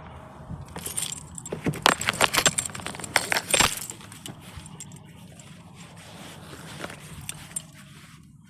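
A bunch of keys jangling and clinking, in a dense run of rapid metallic clinks from about one to four seconds in, with a few lighter clinks later, over a steady low hum.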